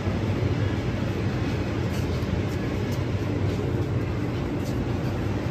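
Steady low mechanical hum of tea-processing machinery running, with a few faint ticks over it.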